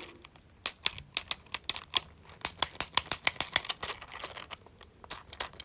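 Plastic push buttons on a small 3D-printed 12-in-1 fidget toy, its loud and quiet buttons, clicked over and over in quick, uneven succession, about three to five clicks a second. The clicks grow fainter and sparser near the end.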